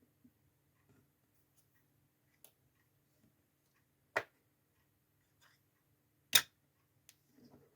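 Two sharp clicks about two seconds apart, the second louder, among a few faint ticks, over a faint low steady hum.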